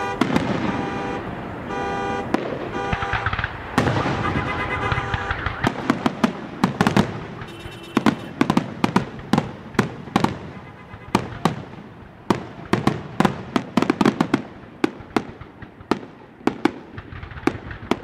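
Aerial firework shells bursting in a rapid finale barrage of sharp bangs, heard close to the launch site. For the first few seconds a car alarm, set off by the blasts, sounds its repeating electronic tones under the bangs. After that the bangs come thick and fast.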